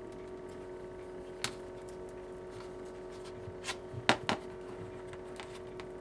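Heat gun running with a steady hum, with a few sharp clicks and taps of handling the tablet and tools; the loudest are two clicks just past four seconds in.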